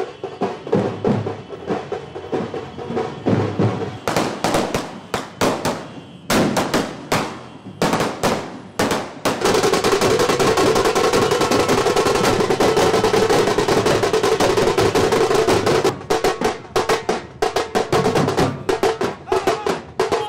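Music dominated by loud drumming: separate sharp drum strokes, then for about six seconds mid-way a dense, continuous drum roll with a held tone over it, breaking back into separate strokes near the end.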